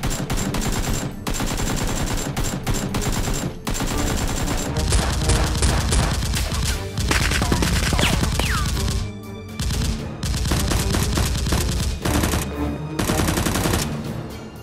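Rapid automatic gunfire sound effects dubbed over Nerf blasters being fired, in long bursts that break off briefly about four times. Background music runs underneath.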